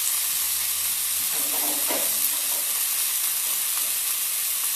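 Diced chicken breast frying in hot oil in a pan: a steady sizzle.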